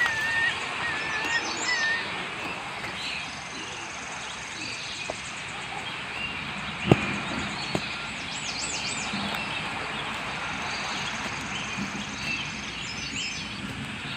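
Birds chirping over steady outdoor background noise: a short whistled note repeated several times in the first couple of seconds, then scattered high twittering calls. A single sharp tap about halfway through.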